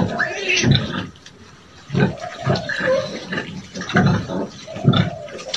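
A nursing sow and her suckling piglets: short low grunts come every half second to a second, with higher pig noises between.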